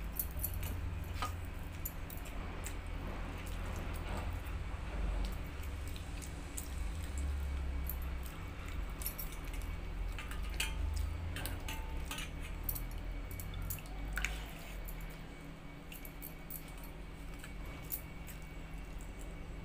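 Bangles clinking and jangling on the wrist as a hand mixes and squishes soaked rice in water in a steel bowl, with many small scattered clinks over a low rumble.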